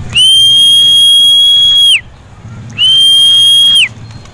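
A whistle blown in two long, loud, steady high-pitched blasts, the first about two seconds and the second about one second, each sliding up at the start and dropping away at the end.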